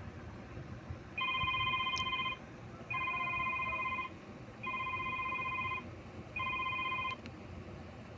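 Electronic mobile-phone ringtone in a trilling telephone-style ring, sounding in four bursts of about a second each with short pauses between.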